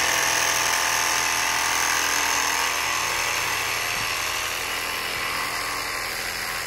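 Cordless jigsaw running steadily as its blade saws through a 3-inch PVC pipe.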